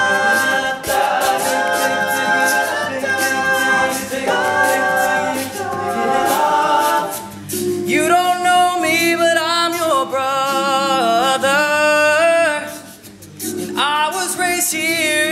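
Male a cappella group singing close-harmony chords with sharp percussive clicks. About halfway in, a solo male voice takes the lead with a wavering, ornamented line over held backing chords, breaking off briefly near the end before coming back in.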